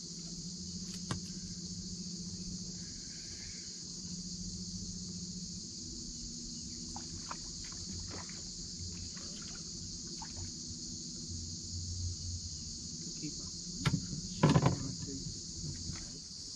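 Steady high-pitched insect chorus, with a low hum beneath it. A couple of loud thumps come about fourteen seconds in.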